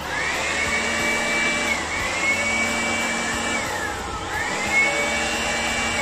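Handheld electric blower running in pulses: its motor whine speeds up to a high steady pitch, holds for a second or so, then slows and drops, three times over, over a steady whooshing hum.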